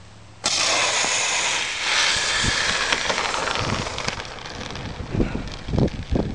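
Bottle water rocket car launching from 120 PSI: a sudden loud hiss of water and air jetting from the nozzle, starting about half a second in, surging again near two seconds and fading after about four. Wind on the microphone and a few thumps follow near the end.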